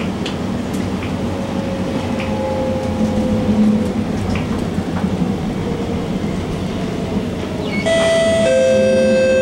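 Alstom Movia R151 metro train from inside the car, slowing into a station: steady rumble of the wheels on the track under a whine from the MITRAC traction drive that slowly falls in pitch as it brakes. About eight seconds in, the onboard announcement chime starts, several tones at once, ringing on to the end.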